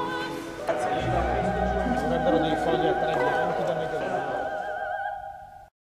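Background music: an operatic voice holding long notes with wide vibrato over an accompaniment, fading out near the end.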